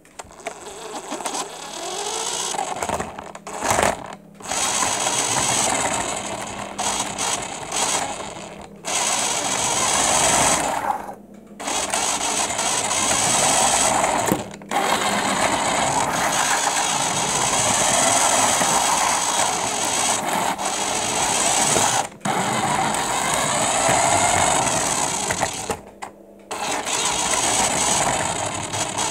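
Radio-controlled Mustang model car's motor and gears whirring as it drives over the floor, with pitch glides as it speeds up and slows. The sound drops away briefly several times as it stops and sets off again.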